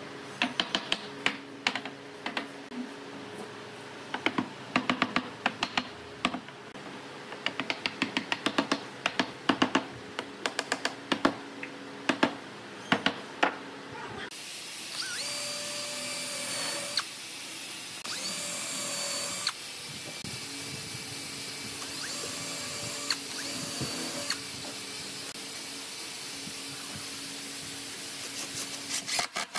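A long series of sharp mallet blows knocking a wooden table frame together, then a cordless drill driving into the pine frame in four short runs of about two seconds each.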